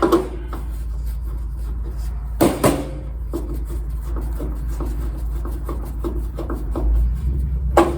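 Sharp knocks of kerosene heater parts being handled, then a run of small clicks and scrapes as a Phillips screwdriver drives a screw into the heater's casing, over a steady low hum.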